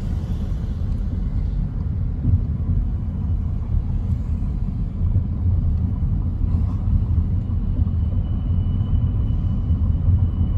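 Steady low road and engine rumble heard inside the cabin of a car driving along a paved road.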